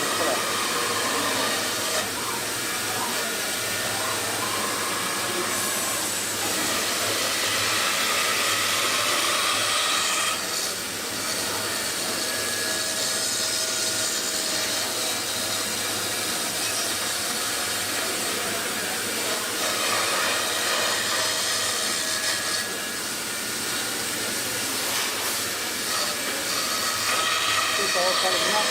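CNC router spindle running and milling a styrofoam mould: a steady, loud hiss with a faint whine that brightens now and then as the cut goes on.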